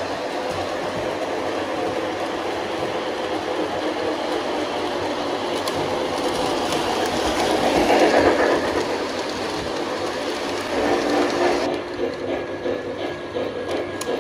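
Lionel LionMaster Challenger 4-6-6-4 O-gauge model steam locomotive pulling freight cars around a track loop: a steady run of motor and wheels on the rails. It is loudest as the train passes close about eight seconds in.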